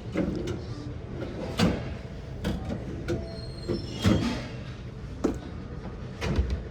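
Irregular knocks and clatters, about seven spread over several seconds, over a steady background din.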